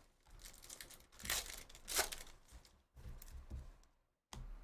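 Trading-card packaging being torn open and crinkled, with two louder rips in the middle.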